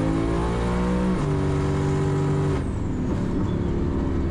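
Turbocharged LS V8 in a drag-race Camaro, heard from inside the cabin. The engine note climbs under full power, steps down about a second in, then eases off as the throttle is lifted about two and a half seconds in. A pop follows the lift, which the owner links to the melted spark plug in cylinder six.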